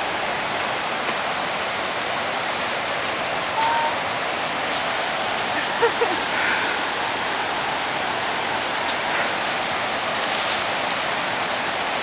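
Steady rushing of a fast, rocky river, with a few faint clicks and two brief small tonal blips over it around four and six seconds in.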